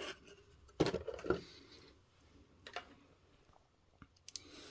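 Cardboard and plastic toy packaging being handled and opened: a few scattered rustles and clicks, the loudest cluster about a second in.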